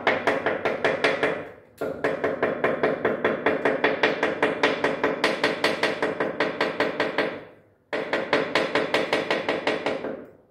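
Rapid, even tapping on newly fitted ceramic wall tiles to seat them on the wall, about six taps a second. The taps come in three runs, broken by short pauses about one and a half and seven and a half seconds in.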